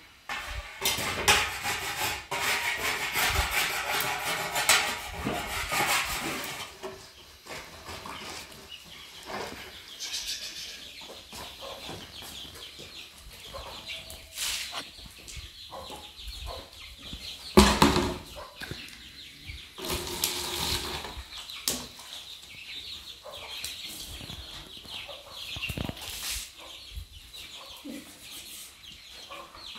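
Chickens clucking and flapping among rustling and knocking noises. A loud rustling stretch fills the first several seconds, and a sharp loud knock comes a little past halfway.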